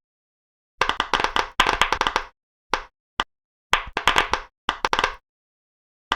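Pop-it fidget toy bubbles popping in quick runs of small sharp pops: a burst about a second in, a longer one after, two single pops near the middle, then two more bursts, with dead silence between.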